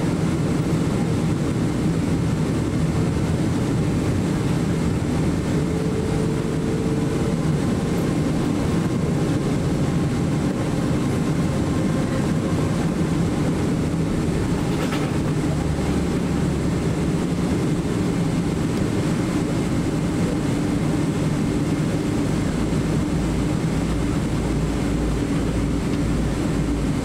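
Cabin noise of a Boeing 777-300ER taxiing: the steady hum of its GE90 engines at low taxi thrust mixed with cabin air hiss. A deep low rumble grows stronger near the end.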